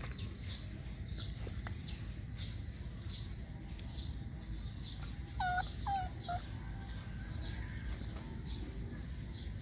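Puppy whimpering: three short high-pitched yelps in quick succession a little past halfway, over a steady low rumble with short high chirps repeating in the background.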